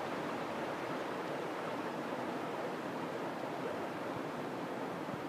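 Shallow creek water rushing over rock ledges in small riffles: a steady, even rush of water.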